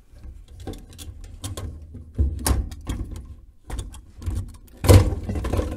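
Plastic fuel pump module being lifted out of the fuel tank, with irregular plastic clicks, knocks and rubbing. The loudest knock comes about five seconds in.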